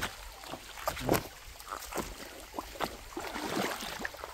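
Shallow stream water sloshing and trickling, with many short, irregular splashes.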